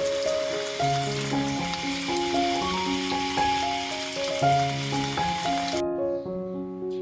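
Tap water running onto loquat leaves in a plastic colander in a sink, a steady hiss that cuts off suddenly about six seconds in. Background piano music plays throughout.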